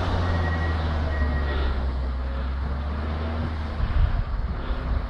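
Diesel engine of a tracked snow groomer running steadily. Near the end the steady hum gives way to uneven low rumbles.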